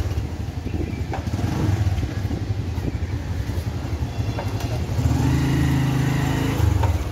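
Motorcycle engine running while riding. It grows louder and rises in pitch from about five seconds in, then drops back near the end.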